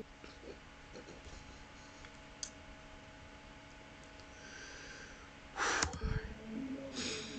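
A man laughing almost silently, with faint breaths, then a sharp burst of breath like a snorting laugh about six seconds in.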